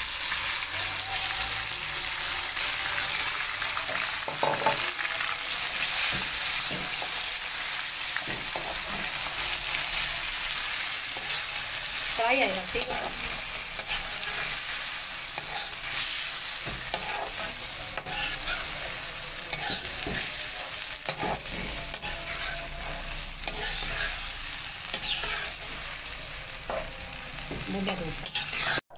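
Marinated chicken and chicken liver sizzling in hot oil in a kadhai, a steady frying hiss, while a steel spoon stirs them, scraping and knocking against the pan again and again.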